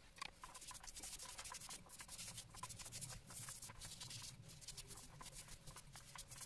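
Kitchen scouring pad scrubbing a slate clock case: faint, quick, repeated rubbing strokes.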